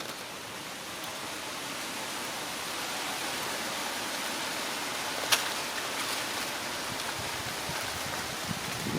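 Steady rushing noise with no distinct tones, with a single sharp click about five seconds in.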